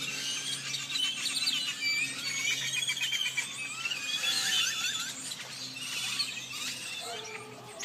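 A flock of birds in a tree calling all at once: a dense chorus of many overlapping high squeaky chirps and whistles, easing off a little near the end. A faint steady low hum runs underneath.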